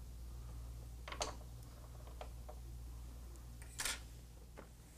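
A few sharp clicks and taps of hand tools being handled on a workbench, the loudest a short clatter about four seconds in as the metal tweezers are laid down.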